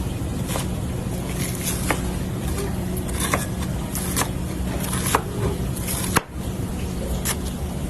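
A steady low mechanical hum with sharp clicks and scrapes every second or so, typical of food being handled with utensils in a working kitchen.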